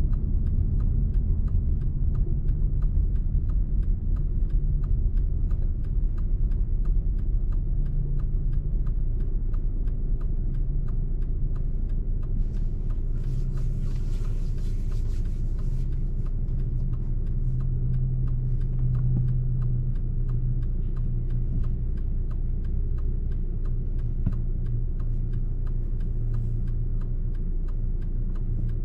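Steady low rumble of a car driving at motorway speed, engine and tyre noise together, with a brief rushing hiss about 13 to 16 seconds in.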